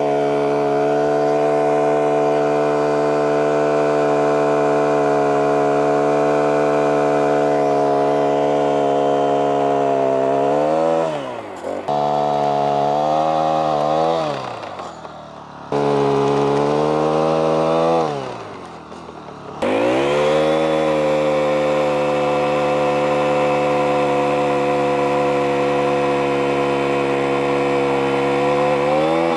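Small petrol engine of a borer drill running at steady high revs while boring wire holes through a timber fence post. Three times the revs fall away and the sound drops, then it comes back suddenly at full speed.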